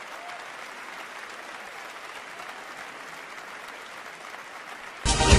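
Audience applauding steadily, with no voice over it. About five seconds in it cuts off abruptly into loud music with a beat.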